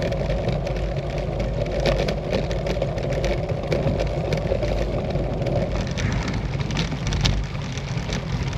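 Specialized Tarmac SL7 road bike rolling along, with a steady rumble and a dense clatter of rattles and knocks through the frame and handlebar. A hum underneath drops away about six seconds in.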